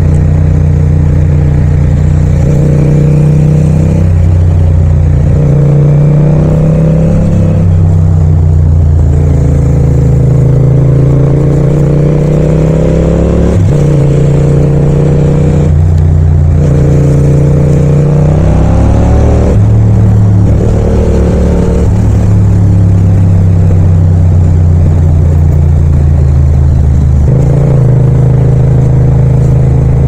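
Yamaha MT-07's 689 cc parallel-twin engine and exhaust running on the road. It rises in pitch again and again as it accelerates, broken by short drops at the gear changes and where the throttle is closed.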